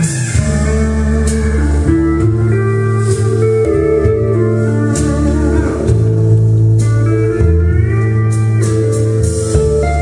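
Guitar-led music playing through a Tandberg 3002 control amplifier and 3003 power amplifier, with a steady bass line under it.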